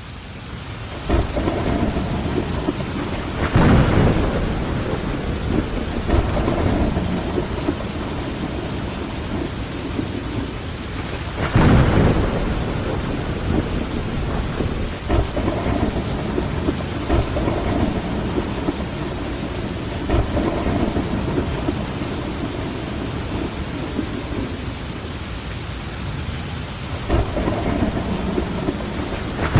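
Steady rain on a window glass with repeated rolls of thunder, fading in over the first second. The loudest rumbles come about four seconds in and about twelve seconds in, with smaller ones later and another building near the end.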